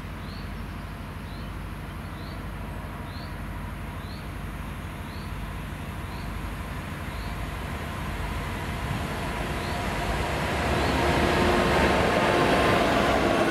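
Two Freightliner Class 66 diesel locomotives approaching, their EMD two-stroke V12 engines making a low, steady drone that grows louder as they near. Rumble and rail noise swell over the last few seconds as they pass close by. A faint high chirp repeats about once a second in the first half.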